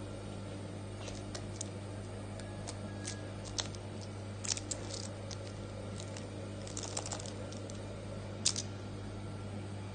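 Dachshund puppy moving and pawing about on its fleece bed: scattered light clicks and scratches, irregular and a few at a time, over a steady low hum.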